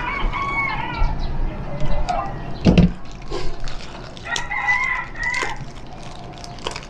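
A rooster crowing twice, each crow lasting a little over a second, one at the start and one past the middle. In between there is a thump and small knocks and rustles from things being handled on a table.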